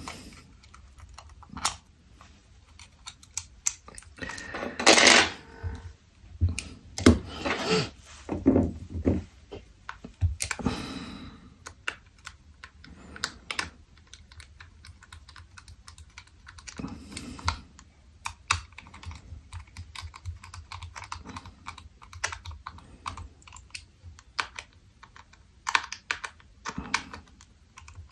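Small clicks and taps of a precision screwdriver and tweezers against a Nest thermostat's plastic housing as its screws are driven back in. There are a few louder scraping handling noises in the first half.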